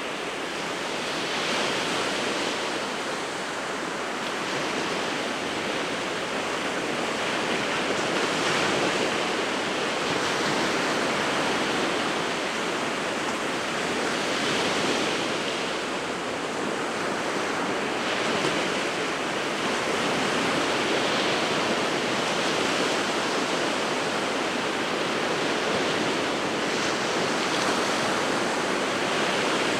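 Winter Sea of Japan surf washing on the shore in a steady, continuous rush, swelling gently every few seconds as waves break.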